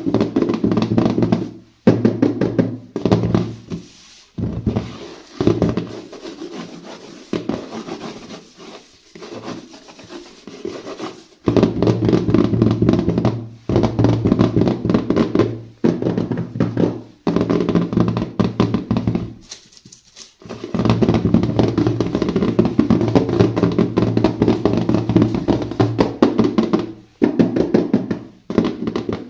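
Background music with a drum beat and a steady bass note, dropping quieter for a few seconds near the start.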